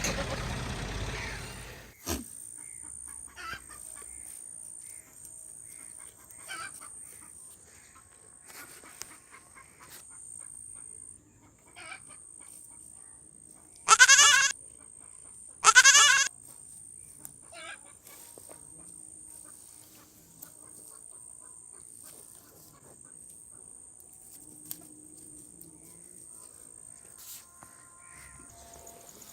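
Goats bleating: two loud, wavering bleats about two seconds apart in the middle, with a few faint short calls before and after.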